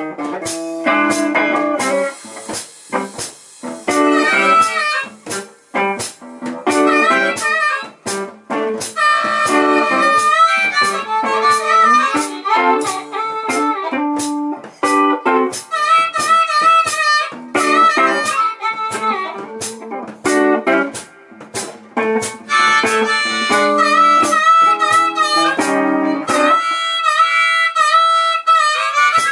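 Blues harmonica, amplified through a handheld microphone cupped in the player's hands, playing a solo of bent and wavering notes. Near the end the backing drops away and the harp holds one wavering note alone.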